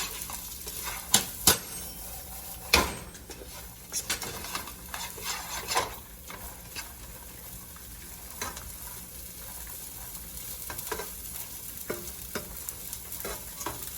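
Chopped carrots and beans sizzling in hot oil over a high flame, with irregular scrapes and taps of a utensil stirring them in the pan.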